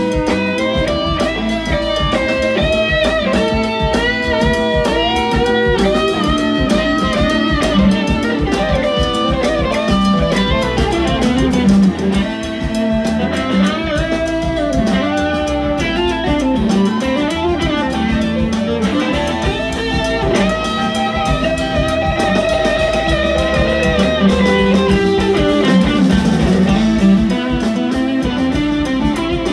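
Live band playing loudly: an electric guitar lead with bending, sliding notes over bass, drums and organ.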